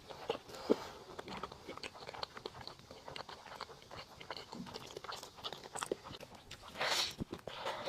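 Close-miked chewing of a sauced beef burger: a continuous run of small, wet, smacking clicks of mouth and food, with a louder, rougher burst about seven seconds in.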